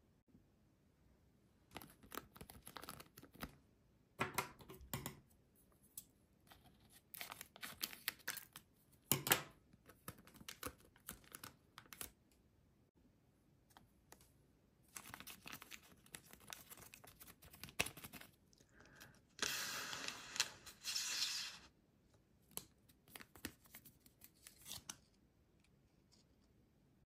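A foil ingredient sachet crinkling in the hands and being torn open, with the longest rip a little past two-thirds of the way through. Scattered crinkles and small clicks come before and after it.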